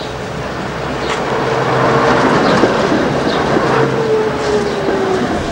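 Electric tram arriving and passing close by, getting louder over the first couple of seconds, with a whine that slides slowly down in pitch and clicking from the wheels on the rails.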